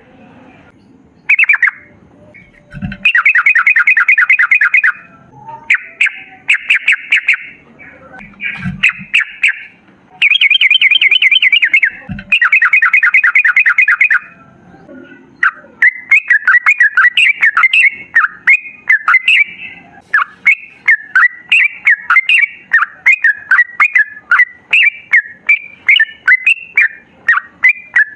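Yellow-vented bulbul (trucukan) singing: a series of fast rolling trills of one to three seconds each, then from about halfway a quick run of short bubbling chirps, about three a second. Three brief low thuds come in the first half.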